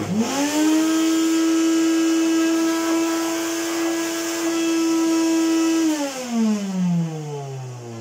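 1986 Hoover Compact S3458 cylinder vacuum cleaner's motor spinning up quickly and running steadily with a roar, then winding down with falling pitch from about six seconds in. The roar is the sign of the motor's top brass sleeve bearing failing and wearing away.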